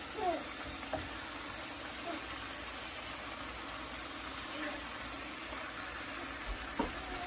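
Chicken breasts frying in a skillet with sliced peppers and onions, a steady sizzle. A fork clicks lightly against the pan about a second in and again near the end.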